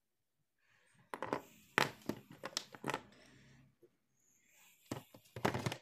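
Sharp plastic clicks and rustling as a small plastic circuit breaker (overload cutout) and its wires are handled: a run of several clicks and knocks, a pause, then another short group near the end.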